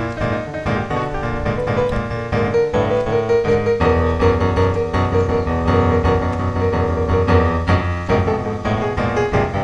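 Background piano music: a melodic piece with bass notes, played at a steady level.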